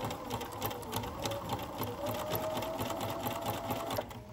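Bernina sewing machine sewing a zigzag stitch at a steady speed, the needle ticking rapidly; the stitching thins out near the end.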